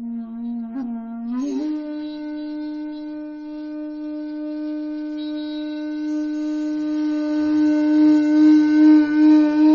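Background music from a solo wind instrument with a breathy, flute-like tone. A lower note slides up about a second and a half in into one long held note. The held note wavers in pitch and swells louder near the end.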